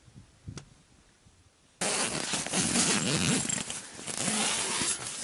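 Ice-fishing tent's zippered fabric door being opened by hand: loud rustling of the tent cloth with rasping and small clicks. It starts suddenly about two seconds in, after a quiet stretch with a few faint clicks.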